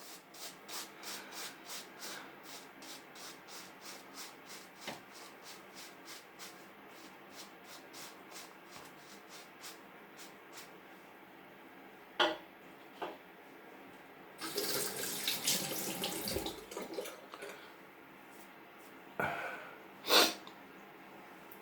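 Straight razor scraping through beard stubble in short, quick strokes, about three a second, fading over roughly ten seconds. Later a tap runs for about two seconds, with a few short splashes and knocks around it.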